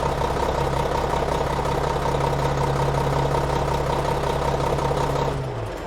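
Truck engine idling steadily, then dropping away and stopping near the end.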